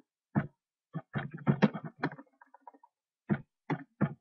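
Computer keyboard typing: about eight to ten separate keystrokes, unevenly spaced with short pauses.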